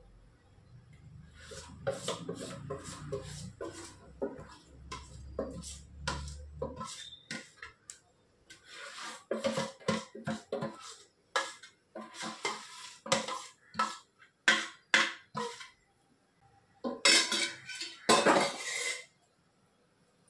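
A metal spoon scraping and clinking against the inside of a stainless-steel bowl as thick batter is scraped out of it, in a long run of short, irregular scrapes and knocks. Near the end comes a louder, quicker flurry of scraping.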